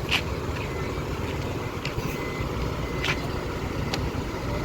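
Large bus engine running nearby, a steady low rumble, with a few short sharp clicks.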